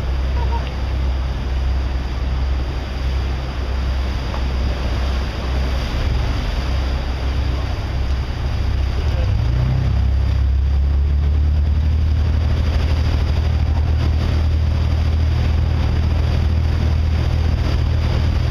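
Boat engine running with a low, steady note under wind on the microphone and water rushing past the hull. About halfway through the engine note steps up and gets a little louder and steadier.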